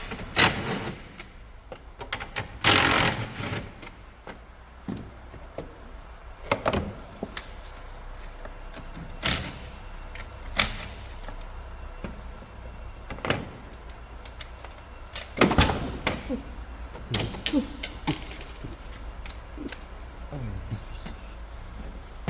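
Irregular knocks, clunks and clicks of hands and tools working on a car during a battery replacement, with a few loud thuds around 3 seconds in and again around 15 seconds in.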